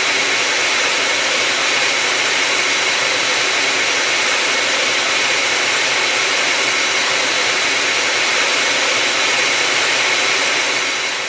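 Jet engine running steadily at power: a dense, even rush of noise with a high steady whine over it. It begins to fade out near the end.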